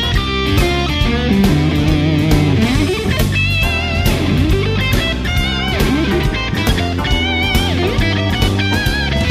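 Rock music with electric guitar, bass and drums; the lead guitar plays bent notes with vibrato.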